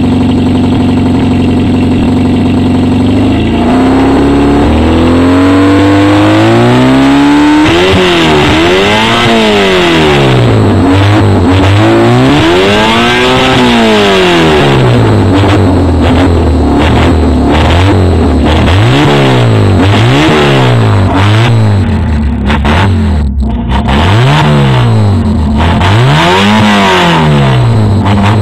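Fiat Ritmo S1300 rallycross car's engine running with no exhaust fitted: a steady idle, then revs climbing over a few seconds, then blipped up and down again and again.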